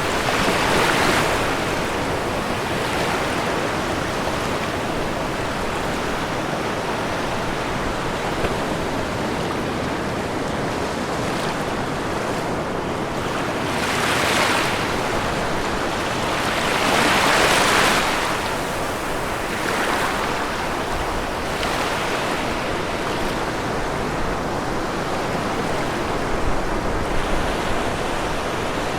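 Ocean waves breaking on a shore in a continuous wash of surf, swelling louder about a second in and again about halfway through.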